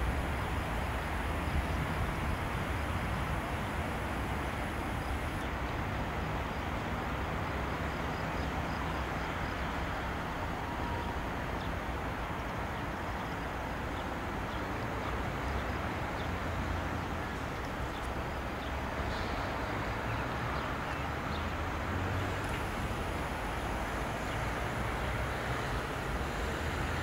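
Airbus A319's twin jet engines running at low taxi power as the airliner rolls toward the runway: a steady rumble.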